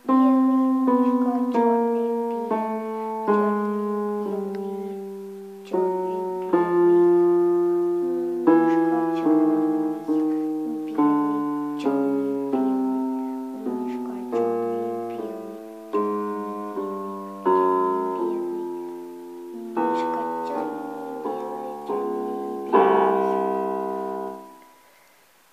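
Yamaha electronic keyboard on a piano voice, a child slowly picking out a single-note melody with the left hand, about one note a second, each note left to ring and fade. Near the end a few notes sound together and die away.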